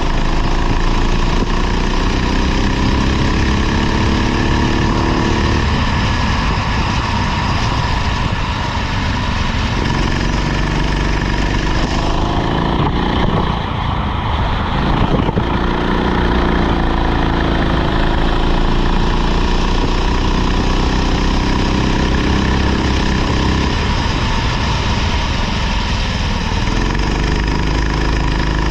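Rental kart engine at full throttle, its pitch climbing on each straight and falling away when the throttle is lifted for a corner, about four times over.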